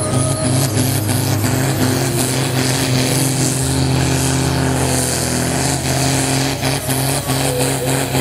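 John Deere pulling tractor's diesel engine running flat out under full load as it drags a weight-transfer sled down the track. It is loud and steady, with its pitch holding even.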